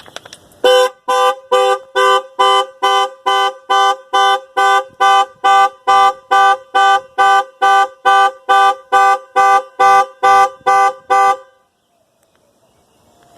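Two-tone car horn honking in a fast, even series of short blasts, about two and a half a second for some ten seconds, then stopping, as a car alarm or panic alarm sounds.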